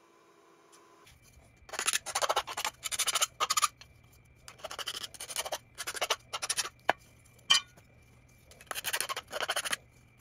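Hand file scraping across the freshly sawn end of an aluminum angle, deburring the cut: three runs of quick back-and-forth strokes, several in each, with a couple of sharp clicks in between.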